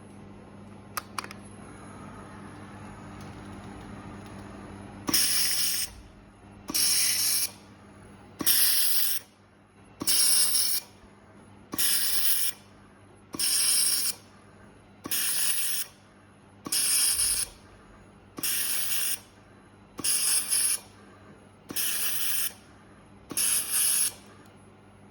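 Automatic laser welding machine working through a repeating weld cycle: twelve short, loud hissing bursts at an even pace of about one every 1.6 seconds, over a steady machine hum. Two sharp clicks sound about a second in.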